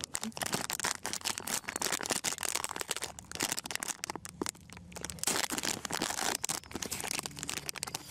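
Foil trading-card pack wrapper crinkling and crackling in the hands as it is worked open, a dense run of irregular crackles.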